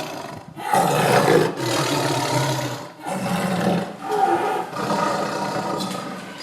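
Tiger roaring and growling, about four long, rough roars one after another with short breaks between them.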